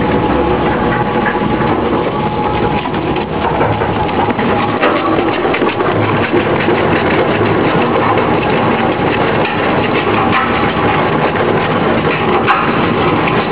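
Single-shaft shredder running, its alloy-steel blade rotor cutting plastic film with a steady, dense crackling over the machine's hum. There is one sharp click near the end.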